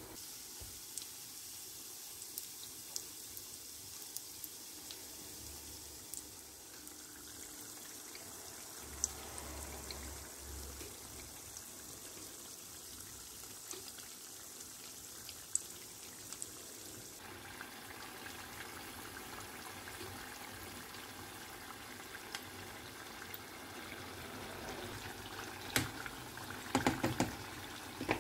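Spring rolls deep-frying in a pot of hot oil: a steady bubbling sizzle with small crackling pops, and a short cluster of louder knocks near the end.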